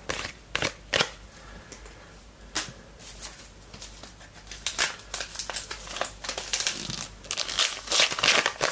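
Wrapper of a Team Coach trading-card pack being handled and opened: scattered crinkles and clicks, then a dense run of wrapper crinkling near the end.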